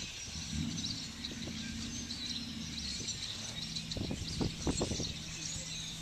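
Small birds chirping and twittering, over a steady low hum, with a few soft knocks late on.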